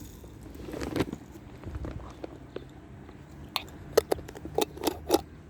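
A cat crunching dry food, a run of sharp crunches that grows denser and louder near the end.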